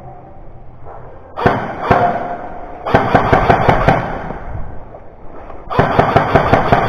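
Airsoft rifles firing in three bursts of rapid shots, each lasting about a second, with short pauses between them.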